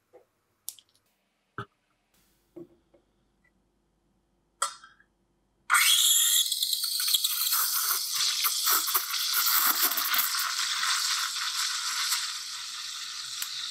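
Steam wand of a stovetop espresso maker frothing milk in a stainless steel pitcher: a loud hiss starts suddenly about six seconds in, with gurgling from the milk underneath, easing slightly near the end. Before it, a few light taps and clicks.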